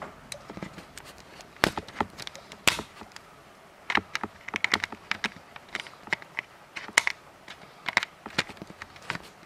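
Raindrops striking a window pane: sharp, irregular ticks and taps, several a second, a few of them louder, during a thunderstorm downpour.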